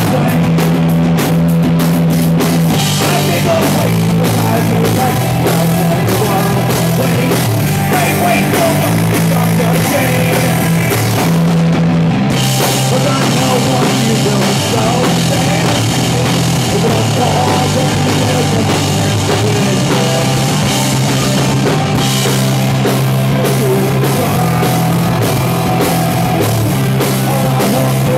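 Live rock band playing loud with electric guitars, bass and drum kit, and a man singing lead into the microphone.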